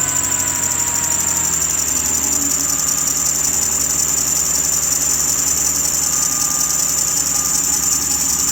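2006 Ford Explorer's 4.0 SOHC V6 running just after starting, with a constant high-pitched screech from under the hood. The owner puts the screech down to a bad pulley on the AC compressor.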